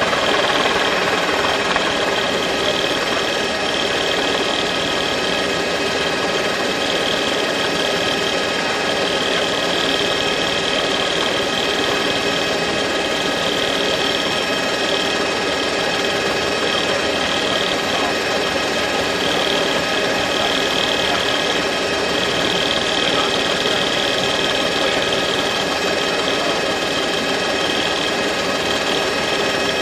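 Helicopter noise: the steady mechanical running of engine and rotors, a fast chatter with several steady whining tones over it.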